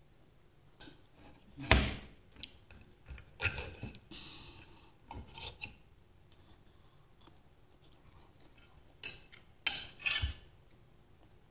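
Metal knife and fork clinking and scraping on a plate while cutting a slice of bread topped with ham and salami. Scattered sharp clinks and short scrapes, the loudest about two seconds in and a cluster near the end.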